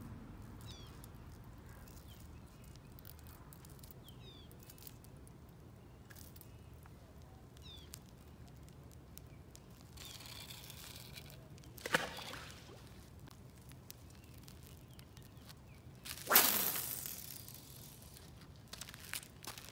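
Quiet waterside ambience with faint bird chirps, then a sharp knock past the halfway point and a louder splash that dies away over a second or so: a caught fish thrown back into the water.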